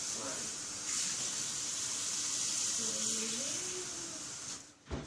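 Water running steadily from a tap, a constant hiss that shuts off near the end.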